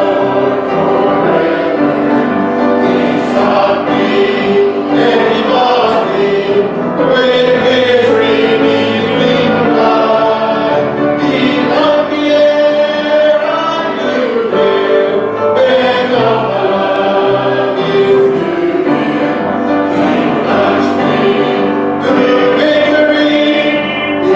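A church congregation singing a gospel hymn together, with piano accompaniment, sustained and continuous.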